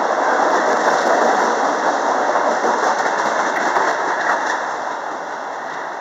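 MBTA Red Line subway train pulling out past the platform, its wheels and motors running loud on the rails, then fading as the last car moves off down the track near the end.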